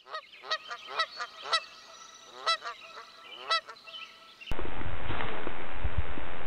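A series of about seven short honking bird calls, each a quick rise and fall in pitch. About two-thirds of the way through they cut off suddenly and give way to a steady, loud rushing noise.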